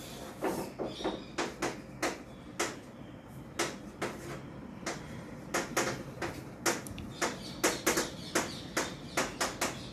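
Chalk writing on a blackboard: a quick, irregular run of chalk taps and short scratchy strokes as letters are formed.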